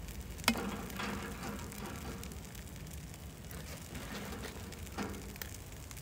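Wood fire crackling under a frying pan of curried sausages simmering, with a sharp click about half a second in and another about five seconds in.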